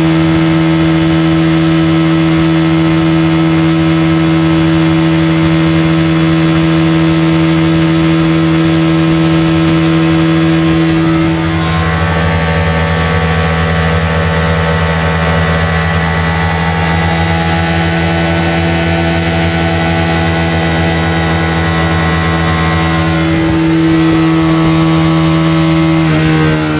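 Honda fuel-injected scooter engine held steadily at high revs, about 9,700 rpm, during an engine-oil test, with a slight change in pitch partway through. Near the end the revs start to fall.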